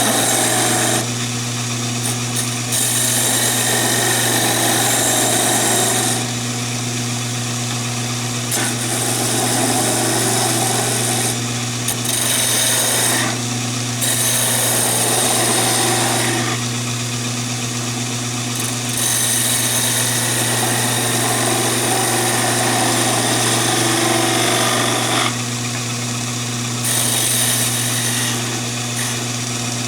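Conover wood lathe running with a steady motor hum while a turning tool cuts the spinning chair-leg blank in repeated passes of a few seconds each. The hiss of the cut comes and goes.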